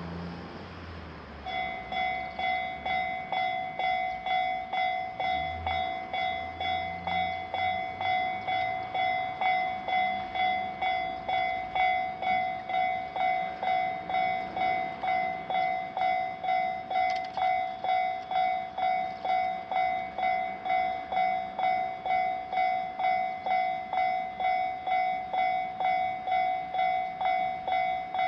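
Japanese level-crossing electronic warning bell starting about a second and a half in and dinging steadily, about one and a half strokes a second: the crossing's signal that a train is approaching. A passing road vehicle fades out at the very start.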